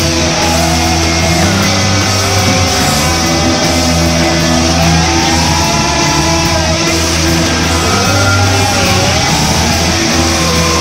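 Heavy rock music with electric guitar over steady held bass notes.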